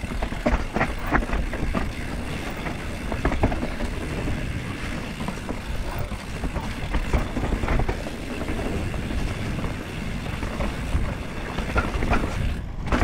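Mountain bike riding fast down a dirt forest trail: a steady low rumble from the tyres on the ground, broken by frequent rattles and knocks as the bike goes over roots and bumps.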